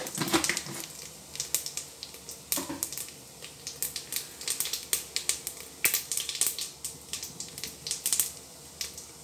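Cumin seeds spluttering in hot ghee in an aluminium pot: rapid, irregular crackling and popping as the seeds fry for a tempering.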